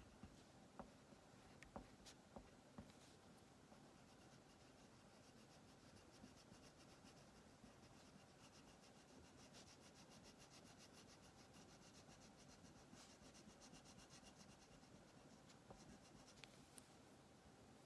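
Wax crayon shading back and forth on paper over a wooden table: faint, rapid, even scratchy strokes that set in about three seconds in and run on steadily, with a few light taps before them.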